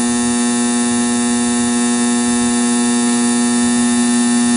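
Cretors caramelizer's buzzer sounding one loud, steady buzz. It signals that the caramel mix has reached the temperature controller's set point and is ready, with the heat shut off automatically.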